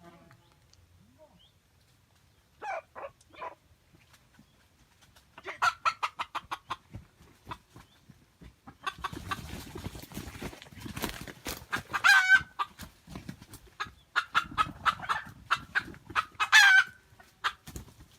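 Wild jungle chickens clucking in fast runs, with two louder cries, about twelve and sixteen seconds in, over a low rustling.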